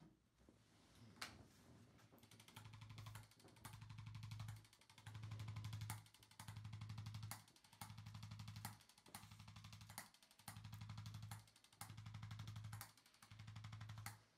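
Chiropractic adjusting instrument vibrating against the spine in about nine short bursts, each about a second long with brief pauses between, a rapid buzzing tap. It is moved from joint to joint along the lumbar and thoracic spine to break up adhesions.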